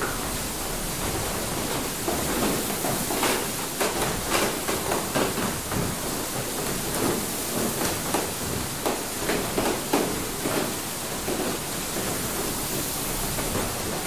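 Inside a water mill: a steady rush of water with irregular knocks and clunks from the mill's machinery, several a second at times.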